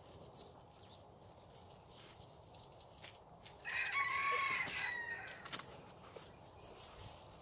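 A rooster crowing once, a single drawn-out call of about a second and a half near the middle.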